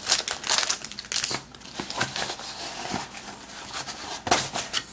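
A small cardboard box being opened by hand: its flaps and packaging rustle and crinkle in quick, irregular strokes, with a few sharper taps.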